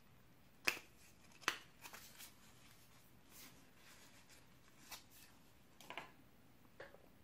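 Small cardboard earphone box and its paper holder being opened and handled by hand: two sharp snaps about a second in, then light rustles and taps as the coiled wired earphones are pulled out.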